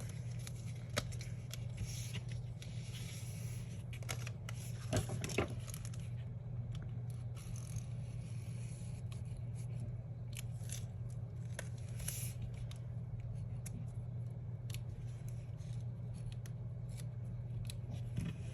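Correction tape (white-out) run over planner paper in repeated short scratchy strokes with small clicks, covering a visible pen line, over a steady low hum.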